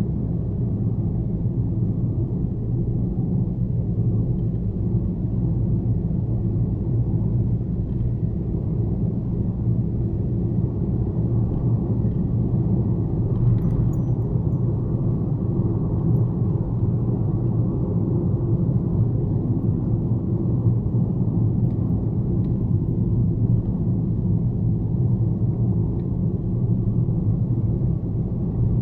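Car driving on a highway: a steady, low road and engine rumble at constant speed, with no change in pitch or level.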